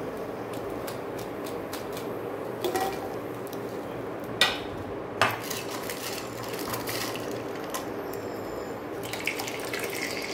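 A metal wire skimmer knocks against the metal frying pan three times, the middle two knocks sharpest, over the steady hum of an induction cooktop. Near the end, dried rice-flour papads dropped into hot oil start to sizzle.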